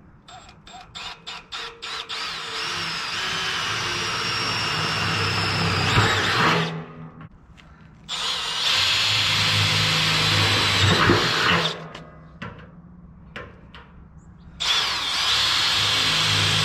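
Power drill working on the stove build: several quick trigger blips, then three runs of a few seconds each with short pauses between them.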